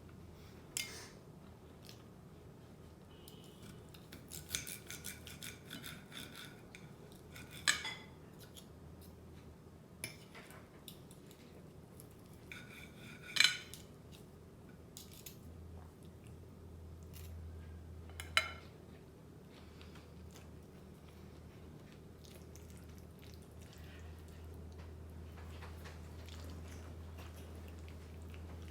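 Fork clinking and scraping against a plate while eating fettuccine alfredo: a handful of sharp clinks, the loudest about thirteen seconds in, over a low steady hum.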